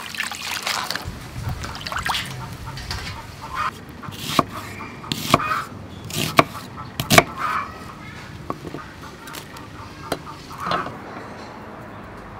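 A kitchen knife chopping an onion on a wooden chopping block: a handful of sharp, irregularly spaced chops. Leafy vegetables rustle in a steel bowl as they are handled at the start.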